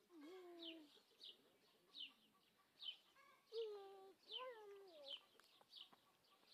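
Chickens calling: a few drawn-out low clucks, the last one falling in pitch, over a short high falling chirp repeated a little faster than once a second.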